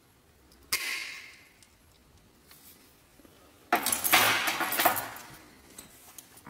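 Thin copper sheet-metal petals clinking and rattling as they are handled: a sharp clink with a short fading ring about a second in, then a longer jangling rattle lasting about a second and a half near the middle.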